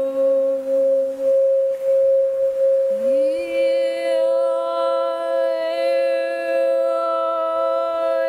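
Crystal singing bowl sung by rubbing a wand around its rim, giving one steady ringing tone, with a woman's voice toning long held notes over it. One note stops about a second in, and about three seconds in a new note slides up into place and holds.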